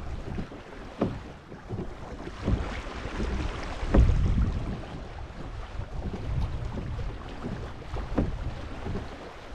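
Kayak moving through water: water splashing and lapping at the hull over a steady wind rumble on the microphone, with a few short knocks or splashes, the strongest about four seconds in.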